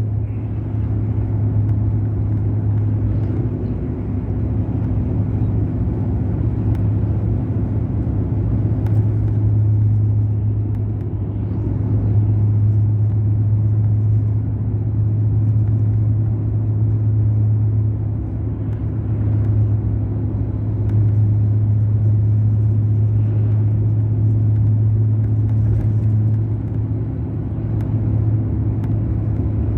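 Mercedes-Benz O500 RSD BlueTec5 bus's diesel engine running steadily under way, a deep, even drone that swells and eases slightly, with road noise beneath it.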